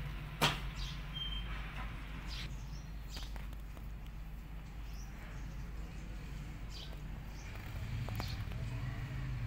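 Scattered short, high bird chirps over a steady low outdoor hum, with one sharp click about half a second in.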